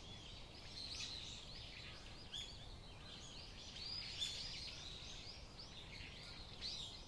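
Faint, busy chirping of small birds: many quick, overlapping high calls.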